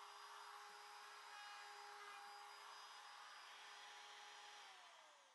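Handheld trim router with a round-over bit spinning freely off the cut, a faint steady whine; about four and a half seconds in it is switched off and its pitch falls as the motor spins down.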